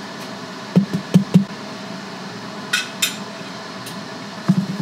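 Metal utensil clinking and knocking against a tray and the rim of an electric hot pot grill as raw shrimp are moved onto it. There is a cluster of sharp knocks about a second in, two short hisses in the middle and more knocks near the end, over the steady bubbling of the boiling hot pot broth.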